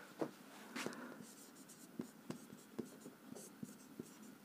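Marker pen writing on a whiteboard: a faint run of short strokes and taps, coming quicker from about halfway through.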